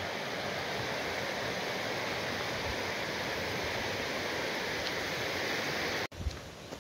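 Small mountain stream rushing steadily over stones. About six seconds in the sound cuts off abruptly, giving way to a quieter background with a couple of low bumps.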